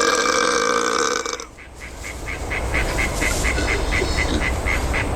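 A man's long, loud burp with a steady pitch that ends about a second and a half in. It is followed by a faint run of short high pips, about five a second.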